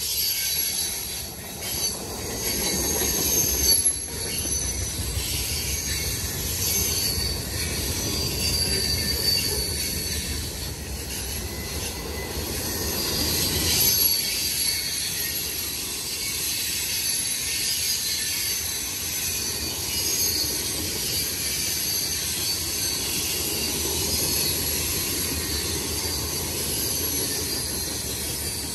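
Cars of a long freight train rolling past, their wheels squealing on a curve in high, wavering tones over a steady low rumble.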